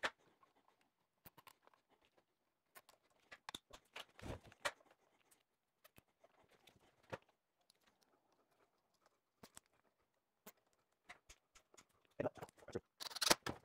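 Nylon cable ties being fastened around power cords by hand: scattered quiet plastic clicks and taps, with a short, denser run of clicks near the end.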